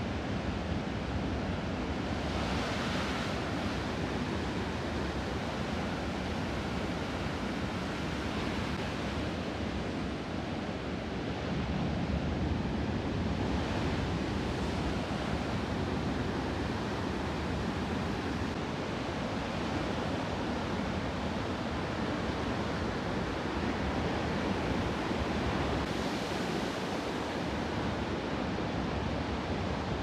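Ocean surf in glassy conditions: a steady wash of waves, with single waves breaking more loudly about 3, 9, 14 and 27 seconds in.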